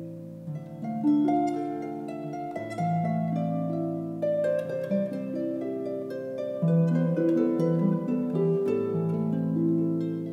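Concert pedal harp played solo: a melody of plucked notes ringing over sustained bass notes that change every second or two.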